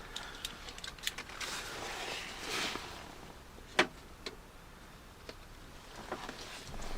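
Small clicks, taps and rustling of parts being handled and fitted on a car door, with one sharper click about four seconds in.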